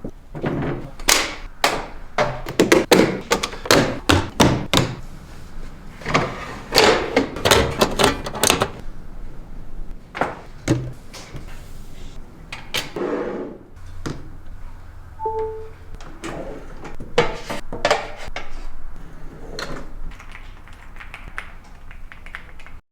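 Thunks, knocks and clatters of standing-desk parts and packaging being handled and set down, with a short beep about halfway through.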